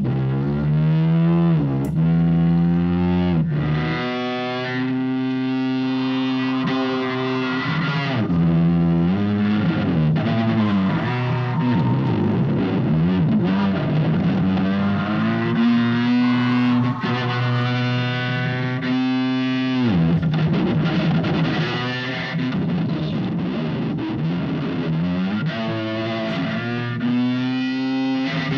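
Handmade imitation of the chase cars' engines: a buzzy, distorted pitched drone that climbs as if revving, falls back as if shifting gear and climbs again, over and over.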